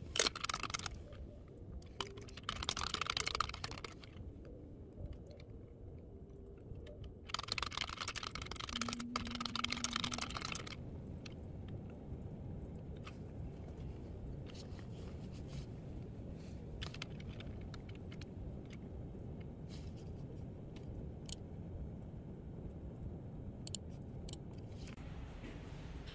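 Typing on a computer keyboard: key clicks, in dense runs in the first half and then scattered single clicks.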